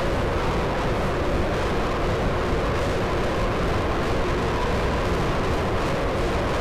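Aircraft carrier's anchor chain paying out as the anchor is lowered: a loud, steady rumbling noise with no separate clanks.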